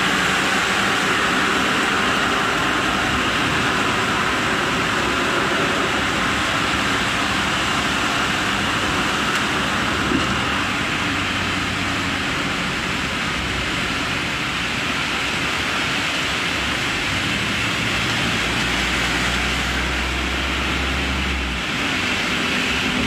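Steady rushing noise of a vehicle driving through heavy rain, heard from inside the cabin: rain on the body and windscreen mixed with tyres on the wet road. A deeper rumble joins for a few seconds near the end.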